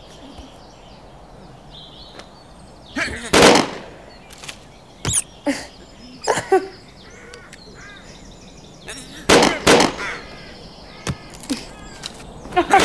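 Cartoon pistol shots, several loud bangs a couple of seconds apart, with bird calls and crow caws in between.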